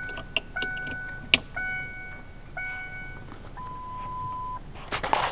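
The 2002 Ford Explorer Sport Trac's dashboard warning chime is going off at key-on, one pitched chime about once a second, with a sharp click a little over a second in. Near the end a single steady beep at a different pitch lasts about a second.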